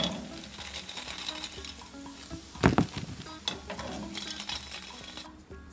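Cassava balls deep-frying in hot oil, sizzling, while a wire spider skimmer clinks and scrapes against the pan as it stirs and lifts them out. A louder knock comes about two and a half seconds in, and the sizzle cuts off suddenly near the end.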